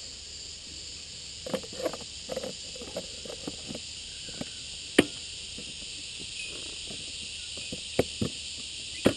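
Hard plastic knocking and clicking as a plastic mulch plug is pushed into the rear discharge opening of a lawnmower: a cluster of soft knocks in the first few seconds, then sharp single clicks about five seconds in, about eight seconds in and just before the end. A steady chorus of insects runs underneath.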